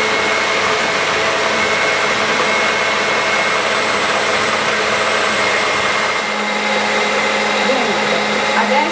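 A Bosch 450 W stand mixer running steadily, its beaters whisking cake batter with cocoa in the bowl.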